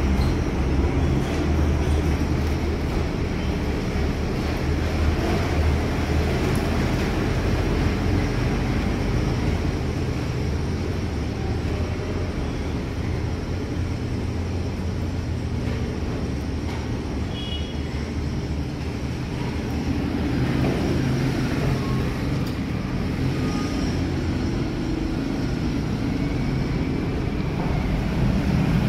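Steady low rumbling noise with a faint hum, without distinct events.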